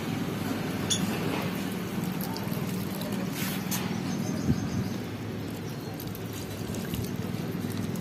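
Liquid fertilizer trickling from a plastic jug into the soil of potted plants, over a low steady hum.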